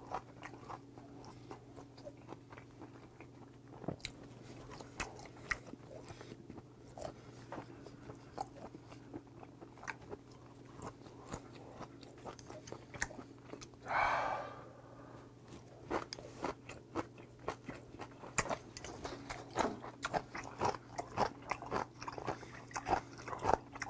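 Close-miked chewing and biting of raw yellowtail sashimi: many small, sharp wet mouth clicks, with one brief hiss about halfway through.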